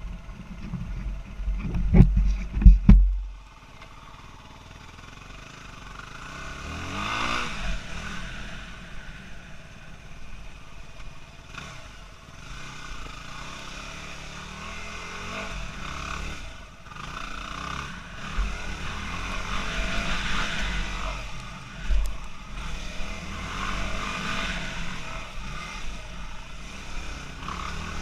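Yamaha motocross bike's engine revving up and down as it is ridden hard on a dirt track, its pitch rising and dropping repeatedly with throttle and gear changes. A few heavy low thumps come about two to three seconds in.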